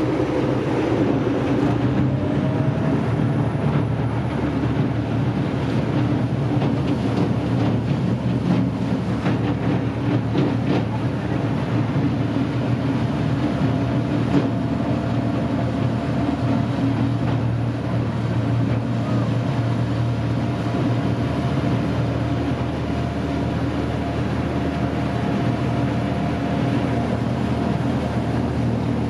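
Vaporetto water bus's diesel engine running steadily under way, with the rush of water churned up in its wake.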